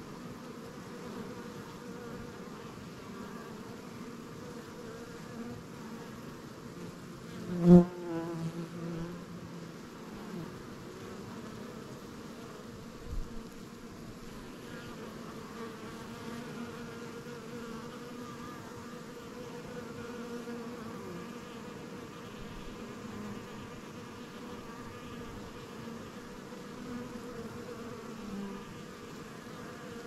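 Honeybee colony buzzing steadily at the hive. About eight seconds in there is a sharp tap, followed by a louder buzz for about a second, and a smaller tap comes a few seconds later.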